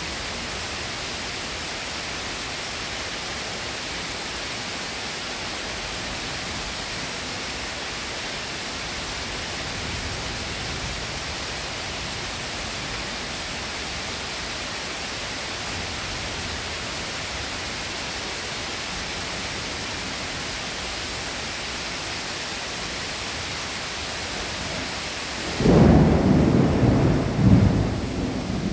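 Steady rain falling with an even hiss. Near the end a sudden loud clap of nearby thunder breaks in and rumbles on, swelling twice before it starts to die away.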